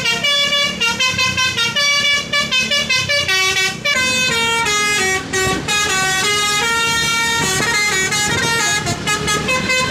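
Telolet basuri multi-tone musical horn playing a tune: a quick run of stepped notes, each lasting a few tenths of a second, with several horn tones sounding together.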